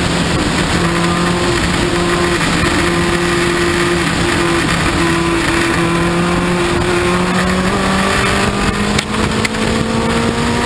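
Open-cockpit sports racing car's engine heard from the cockpit under heavy wind rush, its pitch stepping a few times and then climbing steadily near the end as it accelerates. A few brief knocks come about nine seconds in.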